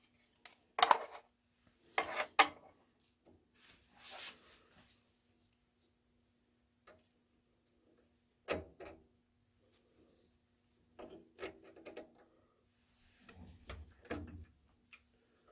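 Irregular metal scrapes and clinks of a 6-32 tap being turned with an adjustable wrench in a spring-loaded tap guide, cutting a thread in 12L14 steel. The wrench is repositioned between short turns, with the loudest clinks about a second in, at two seconds and around eight and a half seconds.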